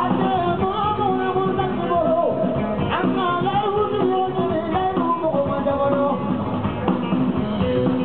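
Live band playing Malian desert-blues rock: a lead vocal over electric guitar, bass and drums, heard from the audience.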